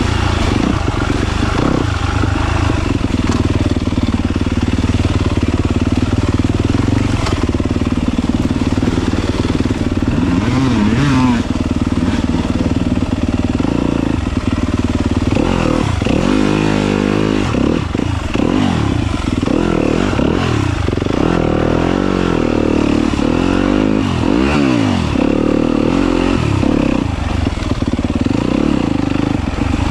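Yamaha YZ250FX four-stroke single-cylinder dirt bike engine running under way. The engine note stays fairly even at first, then about halfway through rises and falls again and again as the throttle is opened and closed.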